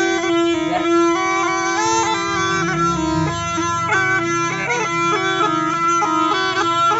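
Snake charmer's pungi (been), a gourd reed pipe, playing a quick, reedy melody over a steady drone note.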